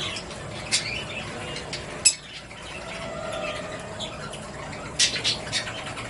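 Small caged parrots (budgerigars and a cockatiel) calling: sharp, high chirps about a second in, a louder one about two seconds in and a quick run of several near the end, over soft continuous chatter.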